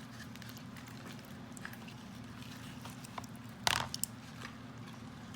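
Borax-activated glue slime being kneaded and squeezed by hand, giving scattered small sticky clicks and squelches, with one louder squelch about two thirds of the way through.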